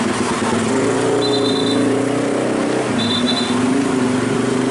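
Road traffic at low speed: a dump truck's diesel engine running steadily as it crosses, with cars passing close by. A short, high double-toned beep sounds twice, about two seconds apart.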